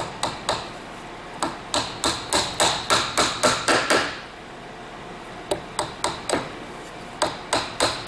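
Claw hammer tapping small 3/4-inch 18-gauge brad nails into a wooden tab, in quick runs of light strikes about three or four a second with short pauses between.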